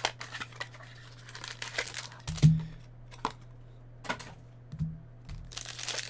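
Hands handling a trading-card box on a table: light rustles and clicks, with a knock about two and a half seconds in and two softer knocks near the end. In the last half second a foil card-pack wrapper starts crinkling as it is torn open.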